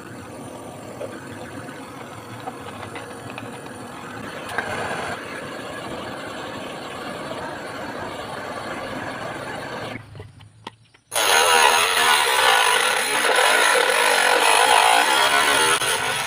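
Portable butane gas torch hissing steadily as it heats a PVC pipe. About ten seconds in it cuts off, and after a second's pause a louder steady motor noise starts.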